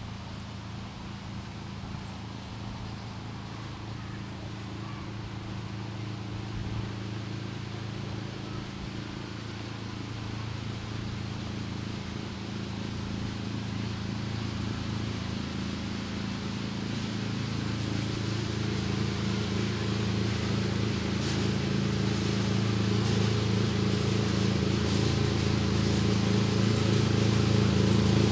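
Miniature-railway locomotive's engine running with a steady hum as the passenger train approaches, growing gradually louder.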